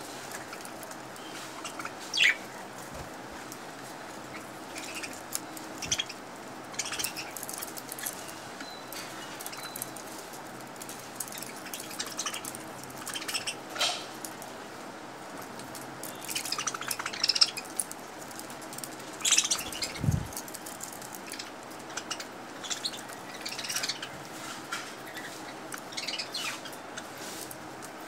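A flock of budgerigars chirping and chattering in short, scattered calls, busiest past the middle, with a low thump about twenty seconds in.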